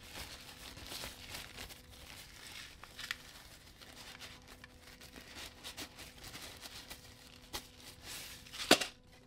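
Thin white wrapping sheet rustling and crinkling as hands unwrap a microphone from it, with one sharp, louder crinkle near the end.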